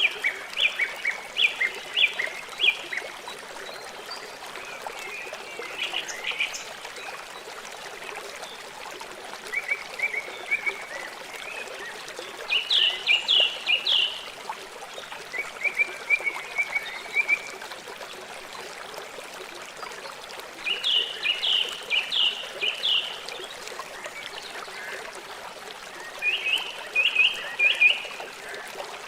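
River water running steadily, with short runs of rapid, high animal calls recurring every few seconds over it.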